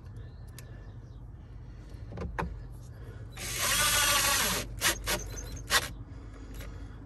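A cordless drill-driver spins briefly for about a second, a little past the middle, while the dash panel's screws are being put back. A few sharp clicks and taps follow, over a steady low hum.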